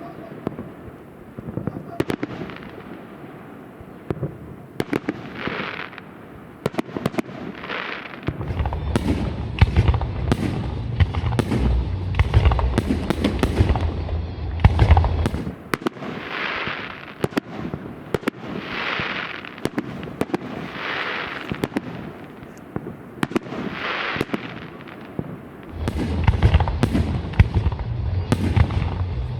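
Fireworks display: a string of sharp bangs from bursting shells, with repeated hissing, crackling swells about a second long between them and stretches of deep rumble.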